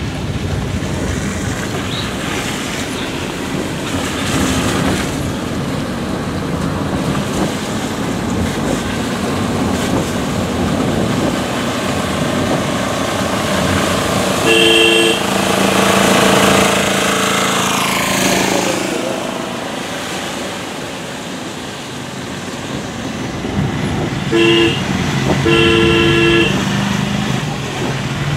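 Steady engine and road noise heard from inside a moving vehicle driving in rain. A vehicle horn honks once about halfway through, then twice near the end: a short beep followed by a longer one.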